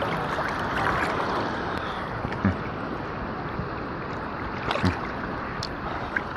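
Sea water sloshing and lapping close around a person wading among small waves, with two brief louder splashes or knocks, about two and a half and five seconds in.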